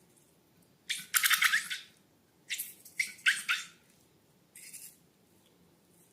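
Slime being squished and worked by hand: four short, crackly squelches in the first five seconds, the longest about a second in, then quiet.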